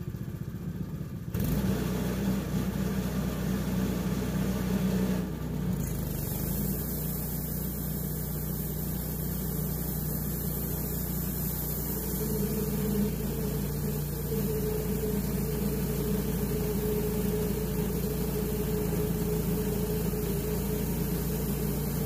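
Wood-Mizer LT10 bandsaw mill running steadily, its engine and spinning band blade working as the saw head advances slowly along a maple log. The sound comes in about a second in and holds steady after that.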